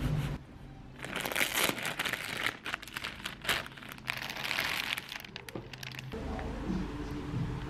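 Clear plastic bag crinkling and rustling as skeins of wool yarn are pulled out of it, for about five seconds. Steady background music comes back near the end.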